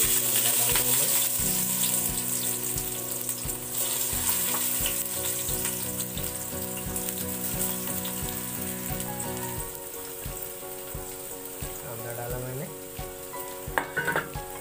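Sliced onions sizzling as they drop into hot oil in a steel pot: the sizzle starts suddenly at full strength and slowly eases. A few short clicks near the end.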